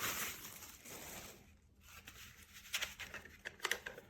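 Rustling and crinkling of packaging for about the first second and a half, then a few sharp plastic clicks and taps as a smoke and carbon monoxide alarm is handled.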